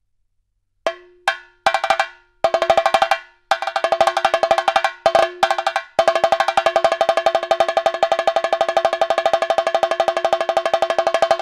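Chenda, the Kerala cylinder drum, struck with sticks, each stroke ringing at a steady pitch. A few single sharp strokes come about a second in, then short rolls, settling into a fast, even roll about six seconds in.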